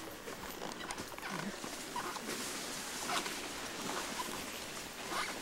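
Leaves and twigs rustling and scraping as an elephant pushes through dense jungle undergrowth, in an irregular run of brushing sounds.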